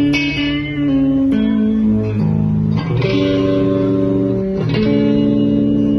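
Schecter C1 electric guitar played through an amplifier: a slow run of held notes and chords, each ringing on until the next one, changing every second or two.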